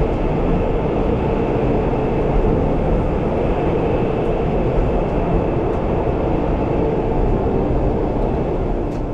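Pilatus Railway cog-railway train running: a steady, dense noise without distinct rail clicks.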